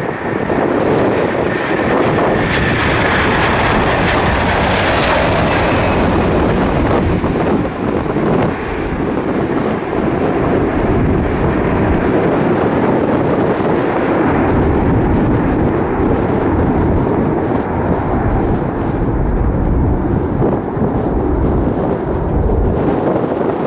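Jet airliner engines passing close by, loud and steady, with a falling whine in the first few seconds and a deep rumble that builds in the second half.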